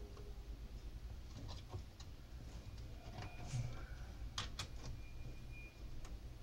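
Faint clicks and light taps of small parts being handled inside a metal amplifier chassis, with two sharper clicks a little past the middle, over a steady low hum.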